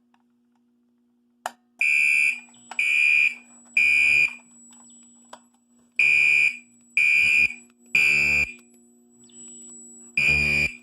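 A sharp click, then a Gentex SHG-24 15/75WR horn strobe sounding its horn in the temporal code 3 evacuation pattern: three short blasts, a pause, three more, and a third set starting near the end. The fire alarm panel is in alarm.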